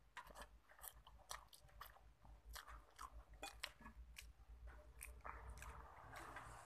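Faint, close-up chewing of instant noodles and rice, with many small wet mouth clicks at an irregular pace.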